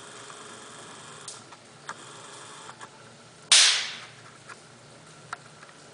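A single loud, sharp crack about three and a half seconds in, dying away within half a second, among a few faint clicks.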